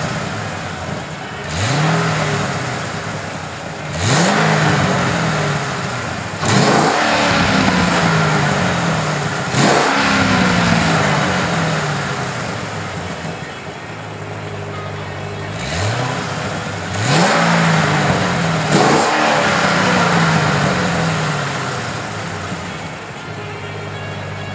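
The 7.0-litre LS7 V8 of a stock 2007 Chevrolet Corvette Z06, heard through its stainless dual exhaust, idles while it is free-revved about seven times. Each throttle blip rises sharply in pitch and then falls slowly back to a steady idle. There is a longer stretch of idle between the third-to-last rev and the ones before it, and again after the last rev.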